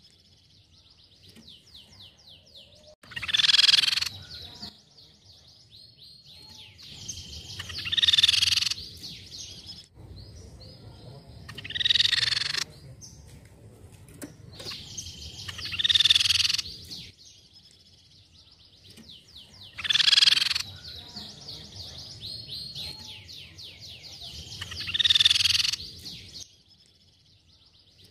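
Crescent-chested babbler singing: six loud, high calls about a second long, coming roughly every four seconds, with a fainter, fast high trill of many short notes between them.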